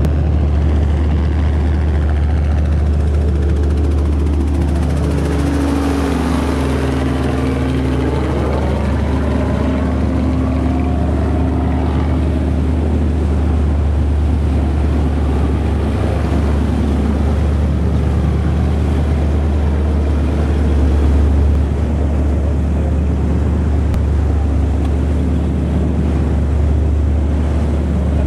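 Onboard sound of a Raider 26 powerboat's 460 cubic-inch Ford big-block V8 running steadily as a deep drone, with water and wind noise. A helicopter passes low overhead about five seconds in.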